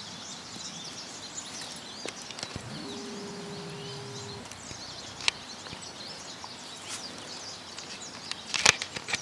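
Quiet woodland ambience with small birds chirping throughout. A few sharp crackles come from a dog's feet in dry fallen leaves and twigs, the loudest near the end, and a brief steady hum sounds about three seconds in.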